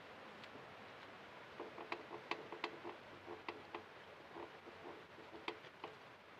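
Rear brake drum of a Perodua Kenari being rocked and turned on its hub by hand, giving a run of faint, irregular metallic clicks and knocks, a few a second, from about a second and a half in.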